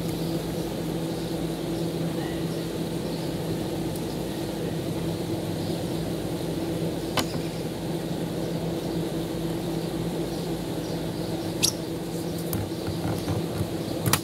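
A steady machine hum, with a few sharp clicks, about seven and twelve seconds in and once near the end, from a flat metal bar prying at the edge of an RV roof vent's flange.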